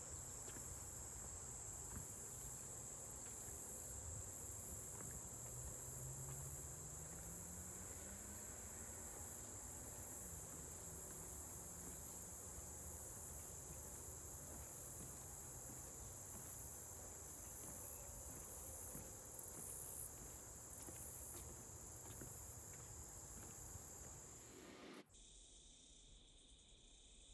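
Insects chirring in a steady, high-pitched drone over faint outdoor background noise. About 25 seconds in it cuts off abruptly, and a quieter, different insect drone follows.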